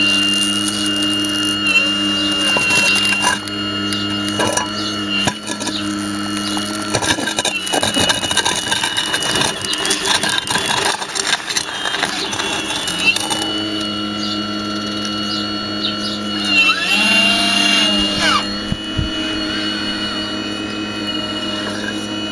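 Electric-driven hydraulic pump and motors of a radio-controlled Hitachi Zaxis 870 scale model excavator whining steadily. Knocking and scraping sound in the middle, and near the end the whine briefly dips and rises in pitch.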